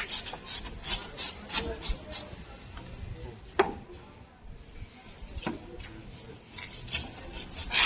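Repeated rough scraping strokes of a hand-held abrasive tool worked across a hard surface, in irregular bursts, with one sharp knock about three and a half seconds in.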